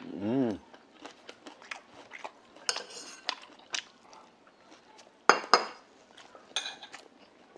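A short hummed "mm" of enjoyment, then chopsticks clicking against ceramic side dishes and a brass rice bowl. Near three seconds there is a ringing clink, and just past five seconds two loud ringing clinks come as the metal bowl is handled and set down.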